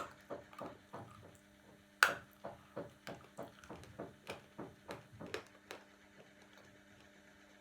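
Close-miked chewing of a mouthful of Turkestan 'cream' edible clay: a steady run of short crunching bites, about three a second, with one sharper crunch about two seconds in. The chewing stops about six seconds in, leaving a faint steady low hum.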